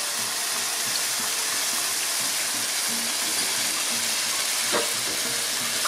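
Red chile sauce of blended ancho and guajillo chiles sizzling steadily as it fries in hot oil in a frying pan.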